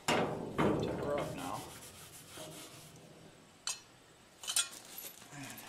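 Steel lawn dump cart rattling and scraping as it is tipped up on its wheels, then two sharp metal clinks of hardware being picked up, about a second apart.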